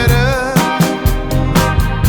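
Background music with a steady beat, bass and a wavering melody line, soul or funk in style.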